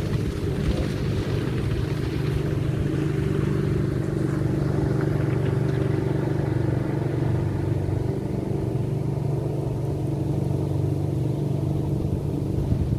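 Speedboat engine running at high speed as the boat crosses the water, a steady, even drone.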